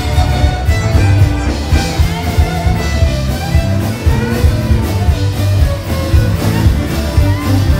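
Live rock band playing on stage: guitars and drums over a heavy bass line with a steady beat.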